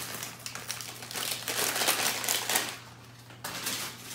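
Thin plastic bags crinkling and rustling in irregular bursts, loudest about halfway through, over a steady low hum.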